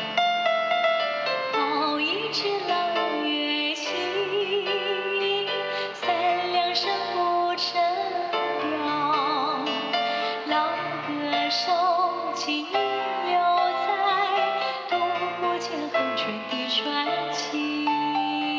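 A woman singing a slow song with vibrato into a microphone, accompanied by chords and a bass line on an electronic keyboard, amplified through a PA speaker.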